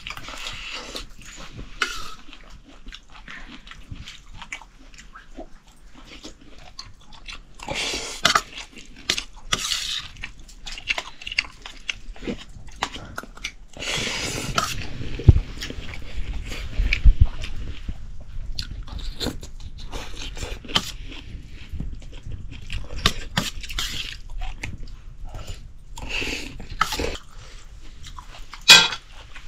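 Close-up eating sounds: a spoon scraping and clicking on a steel plate of rice, with mouthfuls being chewed. Near the end a sharp metal clank, as rice is served from a wok.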